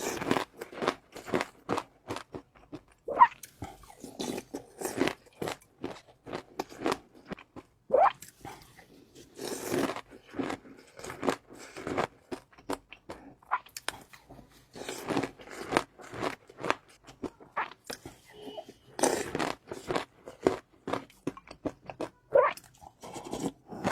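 A person eating close to the microphone: biting and chewing crunchy food, a dense, irregular run of sharp crunches.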